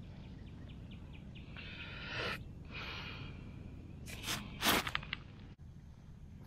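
Old glass bottle grating and scraping against sand and gravel as it is worked out of the ground, with a few faint ticks at first. About four to five seconds in come two or three short, louder rustles.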